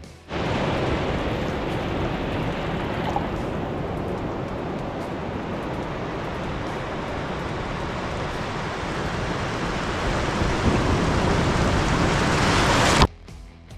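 Surf washing in over a shallow beach shore close to the microphone: a steady rushing wash that builds a little toward the end, then cuts off abruptly.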